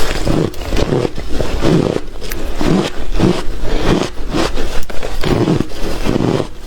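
Hard shaved ice being chewed close to the microphone: a run of crunches, about two a second.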